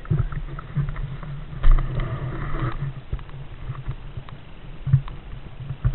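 Low steady rumble with scattered knocks and clicks from a mountain bike and the camera mounted on its rider, on a gravel track.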